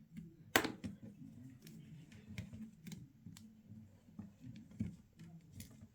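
Small hand tools clicking and tapping against a smartphone's parts during a teardown, a scatter of light clicks with a sharper one about half a second in, over a low steady hum.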